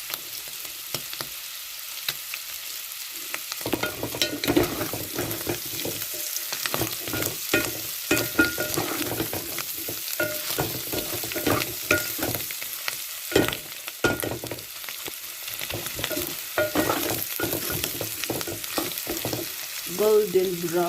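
Boiled tripe sizzling as it fries in plenty of oil in a pan. From about four seconds in it is stirred, with repeated scraping and knocking against the pan over the sizzle.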